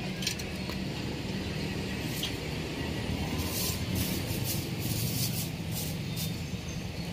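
Metal tongs clicking and clinking against a stainless wire draining rack as fried duck pieces are moved on it, a run of sharp clicks in the second half. A steady low rumble sits underneath.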